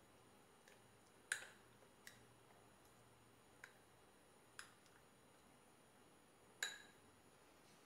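Metal spoon clicking a few times against a small bowl while stirring a thick spice paste, with faint room tone between the clicks.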